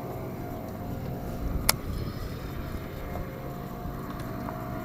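A steady low motor hum with a faint steady whine above it, and one sharp knock about a second and a half in.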